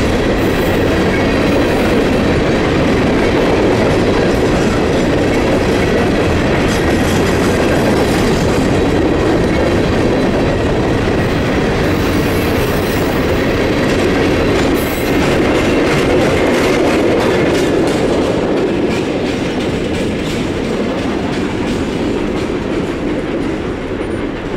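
Freight train of steel coal hopper cars rolling past, a steady loud rumble of wheels on rail with a rhythmic clicking over the rail joints. The caboose at the rear goes by, and the noise fades away over the last few seconds as the train leaves.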